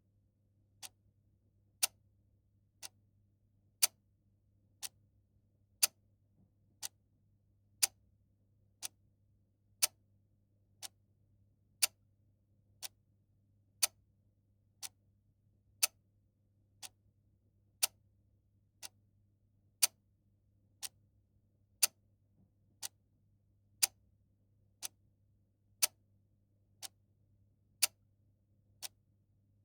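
Mechanical clock ticking steadily, one tick a second, the ticks alternating louder and softer in a tick-tock pattern, over a faint low hum.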